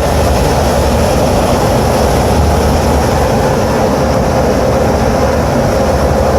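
Carrier rooftop air-conditioning unit running with a steady mechanical hum and fan noise.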